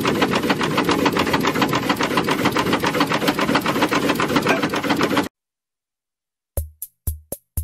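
Steam launch's steam engine running with a quick, even beat over the rush of water, cut off abruptly about five seconds in. After a second of silence, a few notes of soft plucked-string and piano music begin near the end.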